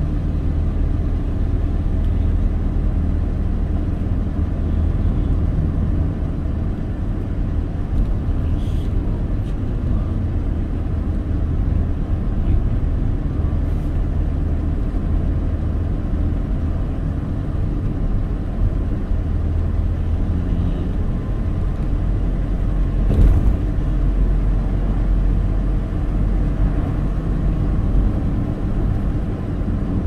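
Car engine and tyre road noise heard from inside the moving car: a steady low rumble, with one short thump about three quarters of the way through.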